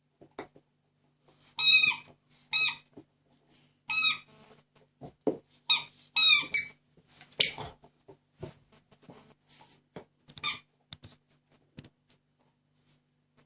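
Squeaky dog toy squeezed in a young Doberman's jaws, squeaking about seven times in quick, uneven bursts, with soft clicks and knocks of chewing between the squeaks.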